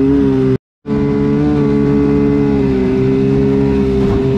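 Kawasaki 750 two-stroke jet-ski engine driving a jet jon boat, running at a steady cruising speed with only a slight waver in pitch. The sound drops out completely for a moment about half a second in.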